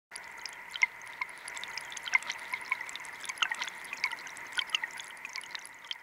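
Faucet running with low water pressure, water trickling and splashing in irregular drops, over a steady high howling tone in the pipes. The howl comes with the low pressure and is the plumbing fault in question.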